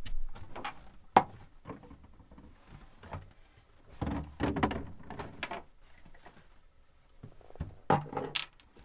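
Scattered knocks, clicks and rustling of hands handling hose fittings and tools in a cramped boat cabin, with a sharp click about a second in and two more near the end.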